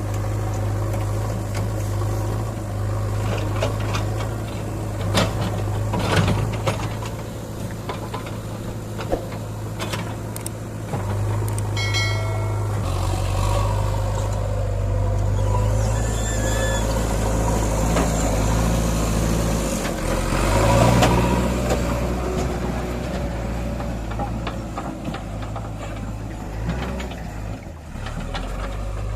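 Heavy diesel engine running steadily, its pitch shifting several times, with a few sharp knocks and a brief high-pitched tone about twelve seconds in.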